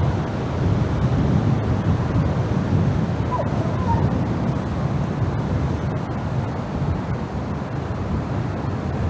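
Strong wind blowing hard in a steady, low, gusty rush, with two faint short high sounds about three and four seconds in.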